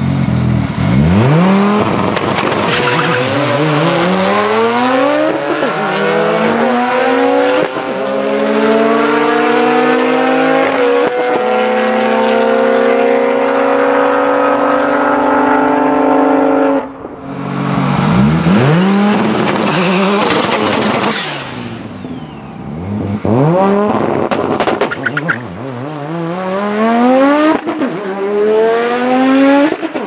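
Turbocharged inline-five engine of an Audi UrS4 drag car at full throttle off the line, its pitch climbing through each gear and dropping at every upshift. About seventeen seconds in, the sound cuts off briefly, then a second launch climbs through several more upshifts.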